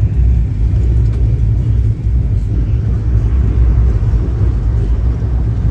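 Shatabdi Express passenger train running at speed, heard from inside the coach: a steady low rumble of wheels on the rails.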